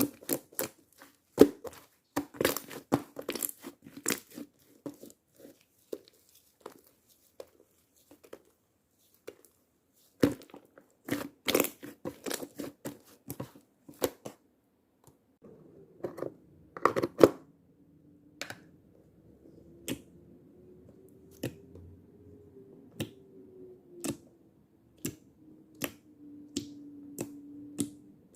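Hand-played slime making sticky clicks, pops and crackles as it is pressed and stretched. The clicks come thick in the first half and thin out to single pops later. From about halfway a faint steady hum with a gently wavering tone sits underneath.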